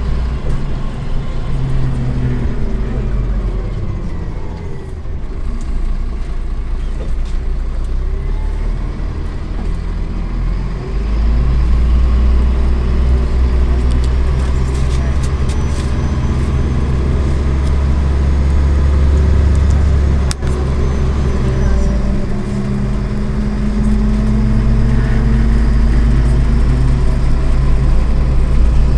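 Inside a moving MAZ-103 city bus: the engine and drivetrain drone low and steady under road noise, getting louder about eleven seconds in and climbing in pitch near the end as the bus speeds up. A single sharp click comes about twenty seconds in.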